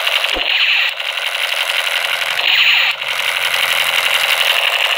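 Battery-powered toy military machine gun playing its electronic rapid-fire sound effect: a continuous, loud crackling rattle that swells louder about every two and a half seconds.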